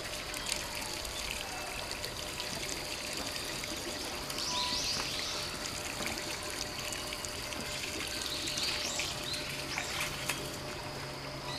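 A small jet of water spurting up from the ground and splashing back onto wet stone paving, a steady pouring and splashing sound. A few short, high chirps sound over it, about four seconds in and twice near the end.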